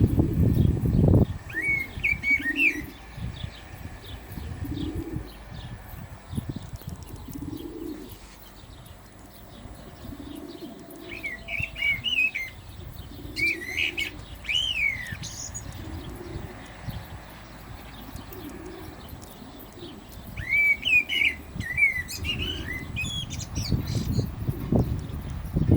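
Common blackbird singing, short fluty warbled phrases in four separate bouts, with soft low notes repeating about every two and a half seconds underneath. A loud low rumble in the first second or so is the loudest sound, and it returns near the end.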